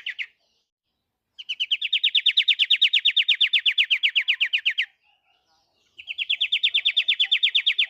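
Pied triller (kapasan kemiri) singing: fast trills of about a dozen repeated notes a second, each about three and a half seconds long. One trill ends just at the start, another comes about a second later, and a third begins about six seconds in.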